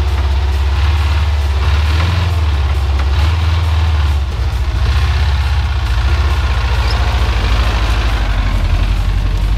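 LuAZ-969's small air-cooled V4 engine running steadily under load in low gear as the 4x4 crawls through muddy forest ruts.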